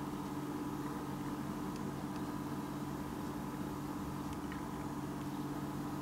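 Steady mechanical hum with several fixed low tones, unchanging throughout, with a few faint clicks.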